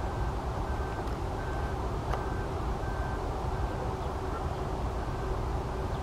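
Steady low outdoor rumble of distant background noise, with a faint high beep repeating evenly a little faster than once a second. No crane calls stand out.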